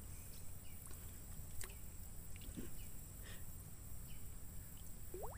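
Faint outdoor ambience: a low steady rumble with a few short, scattered animal chirps and one quick rising call near the end.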